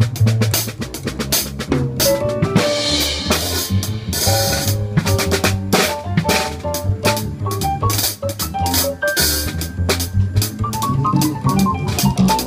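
Live jazz band with the drum kit to the fore: busy snare and bass drum strokes and cymbal wash, over a moving bass line and notes from other instruments.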